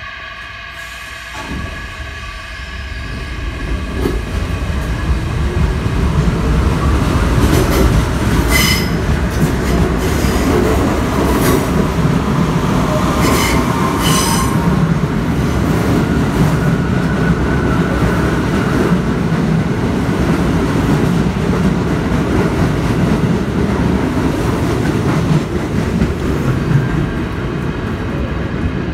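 New York City subway train pulling out of the platform and running past, a heavy rumble and clatter of steel wheels on the rails that builds over the first few seconds and then holds loud. There are a couple of brief high-pitched wheel squeals along the way.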